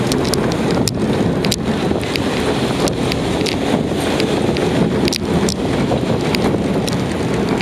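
Heavy wind rumble on the camera microphone, a steady rush with frequent sharp clicks and knocks.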